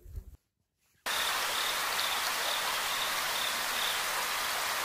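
A short low thump, then a moment of silence, then a sudden steady hiss like heavy rain starting about a second in, with faint high chirps over it.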